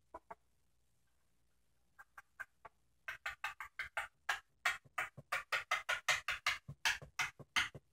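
Small plastic Lego pieces clicking and clattering as hands sort through a pile of loose bricks. A couple of clicks come first, then from about two seconds in a fast, uneven run of sharp clicks, several a second.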